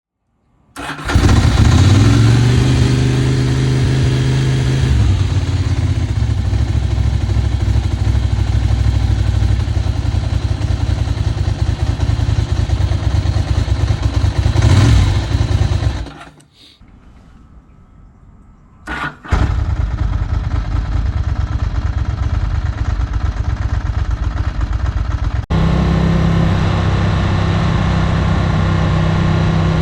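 Ducati 900SS air-cooled V-twin starting about a second in and running at a fast idle that drops after a few seconds. It is blipped once, shut off, and after a few seconds starts again at once and runs on at idle.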